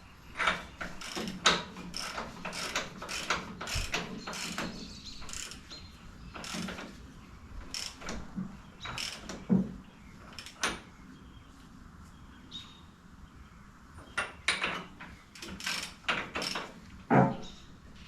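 Hand tools at work in a garage: an irregular run of sharp metallic clicks and knocks.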